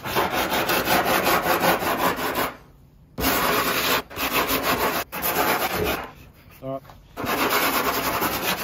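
Hand sanding block with sandpaper scrubbed back and forth over the epoxy and carbon skin of a windsurf board's nose. It comes in three runs of quick strokes with short pauses between. The damaged area is being sanded into a shallow V and feathered out to an even edge, ready to take layers of fiberglass.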